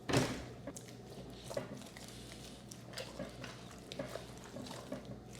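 A raw turkey flipped over, landing on the tray with a dull thud just at the start, followed by faint soft handling noises.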